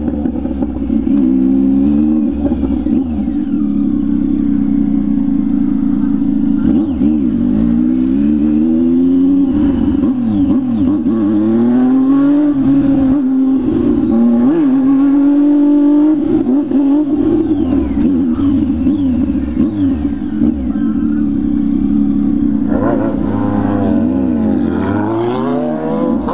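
Several motorcycles with loud open exhausts running together. One is held at a steady high engine note while others rev up and drop back, their pitches rising and falling over each other. Another burst of rising revs comes near the end.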